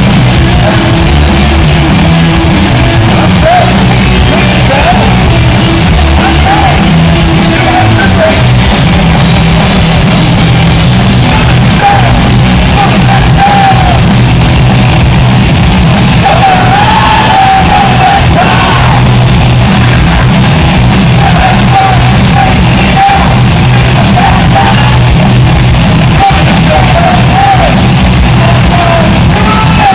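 Live punk rock band playing loud: distorted electric guitars, bass and drums, with a shouted lead vocal over them.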